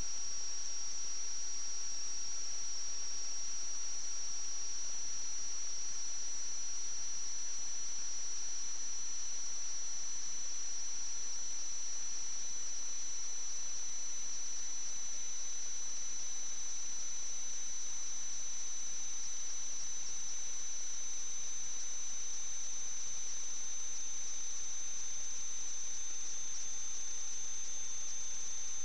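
Steady high-pitched electronic whine over a constant hiss: two thin unbroken tones that slowly drift apart, with no other sound. This is electrical noise on the audio of a sewer-inspection camera recording.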